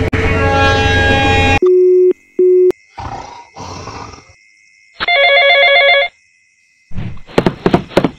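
A battery toy steam train's electronic sound cuts off after about a second and a half. Then comes a string of added sound effects: two short steady beeps, two snoring rasps, about a second of a pulsing telephone ring, and a few sharp clicks near the end.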